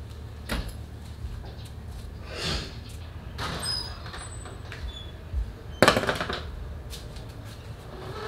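Scattered handling knocks and clatter on a concrete floor, the loudest a sharp knock about six seconds in, as a plastic basin is set down. A few brief bird chirps come in near the middle.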